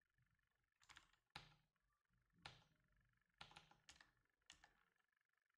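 Faint computer keyboard keystrokes: a few scattered key presses as a terminal command is typed.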